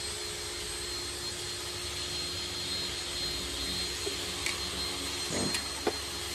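Steady machine-like whir and hiss with a thin high whine, the kind of sound a nearby running motor or fan makes. A few light knocks of plastic door-mirror housings being handled on a bench come between about four and six seconds in.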